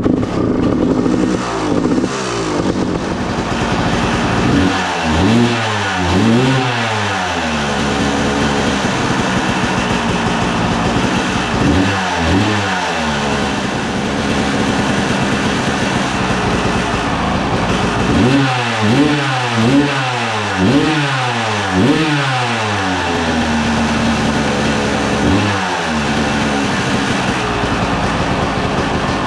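2002 Honda CR250R's single-cylinder two-stroke engine idling, revved in quick throttle blips several times: a cluster about five seconds in, another near twelve seconds, a longer run of blips around nineteen to twenty-two seconds and one more near twenty-five.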